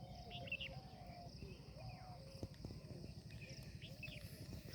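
Faint rural outdoor ambience: a steady high insect drone, a string of short, arching mid-pitched animal calls repeating about twice a second, and a few higher bird chirps.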